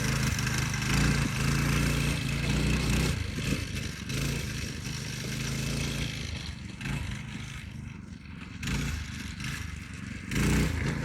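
Go-kart's 8-horsepower small engine running. It is steady at first, fades as the kart moves off, and comes back louder near the end.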